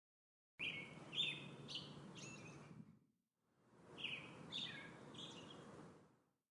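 Faint bird calls: short high chirps over a background hiss, heard in two stretches of about three seconds each that start and stop abruptly.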